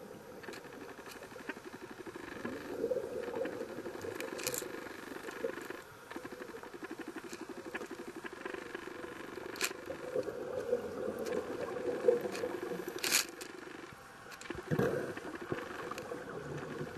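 Scuba diver's breathing heard underwater: the regulator's exhaled bubbles crackle and rumble in long spells, broken twice by short, quieter pauses for the inhale. A few sharp clicks stand out, the loudest about 13 seconds in.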